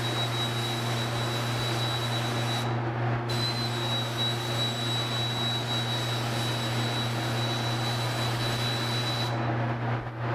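Spray gun hissing steadily as paint is sprayed, over a constant motor hum. The hiss stops briefly about three seconds in and again near the end, between passes.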